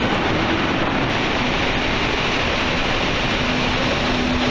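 Berlin U-Bahn train pulling out of an underground station, a steady rushing rumble of the moving cars. A faint low motor whine comes in about three seconds in.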